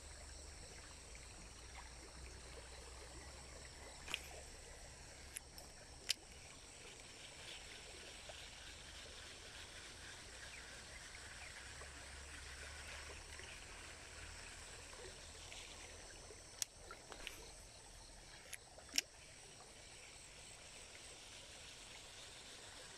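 Faint, steady rush of a shallow stream's flowing water, with a few sharp clicks scattered through it.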